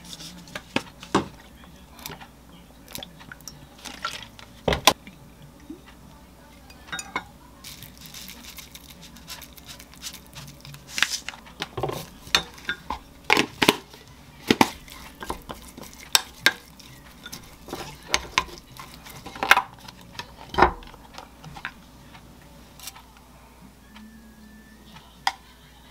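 Wooden spoon tapping and scraping against a glass mug as seasonings are spooned in and mixed, with irregular sharp clinks and knocks, busiest in the middle.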